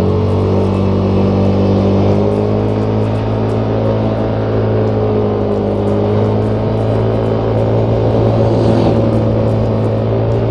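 Motor scooter engine running at a steady cruising speed, with wind noise on a chest-mounted external mic fitted with a furry windscreen. The wind is strong.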